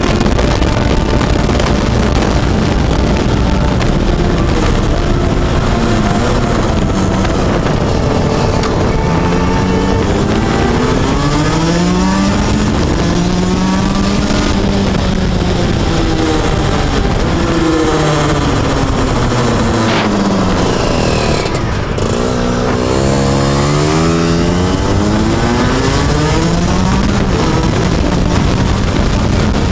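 Rotax 125 cc DD2 two-stroke kart engine driving hard, its pitch climbing as it accelerates and dropping as it eases off, over and over. It briefly backs off about two-thirds of the way through, then climbs again.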